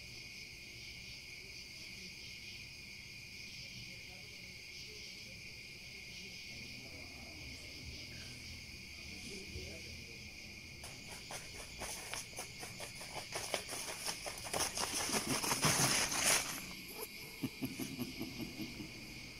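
Night insects, crickets among them, chirring steadily. From about eleven seconds in, a run of sharp clicks grows denser and louder, peaks and stops abruptly about sixteen seconds in.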